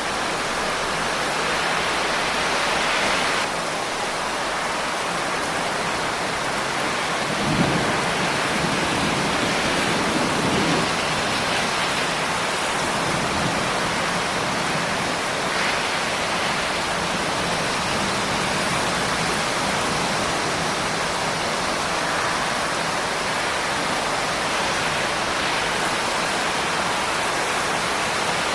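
Steady heavy rain, with a brief low rumble of thunder about a quarter of the way through.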